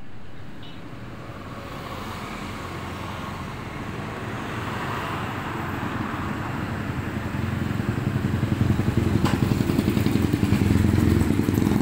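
Motor vehicle engine running, growing gradually louder, with a single sharp click about nine seconds in.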